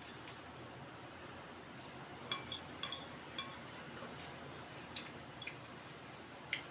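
Eating utensils clinking against a bowl while eating instant noodles: a cluster of light clinks about two to three and a half seconds in, then a few more spaced out later.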